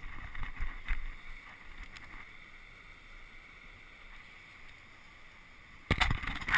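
Steady hiss of wind and surf, with low gusts of wind rumbling on a body-worn camera's microphone in the first second. Near the end comes a loud rough burst of the camera being jostled as the wearer bends toward the sand.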